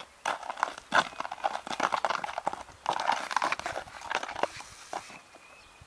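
A horse's hooves stepping on the ground: an irregular run of crunching clicks, with a short lull about three seconds in.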